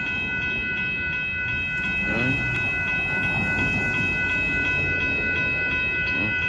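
Railroad grade-crossing warning bell ringing steadily in rapid, evenly repeated strikes, signalling an approaching train while the crossing gates come down.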